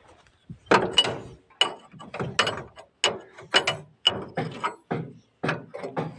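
Repeated sharp clanking knocks, about two a second and slightly uneven, each ringing briefly: hand work on the rickshaw's metal parts.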